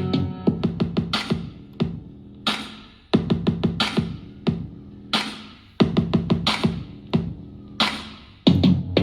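Electronic music with a drum-machine beat and synthesizer, played through a Zinq ZQS-111 Beast USB multimedia speaker at 90% volume for a sound test.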